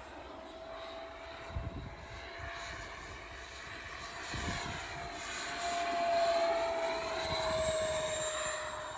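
Twin 80 mm electric ducted fans of a scratch-built RC jet whining in flight. The steady high whine grows louder about five seconds in and drops slightly in pitch near the end as the jet passes.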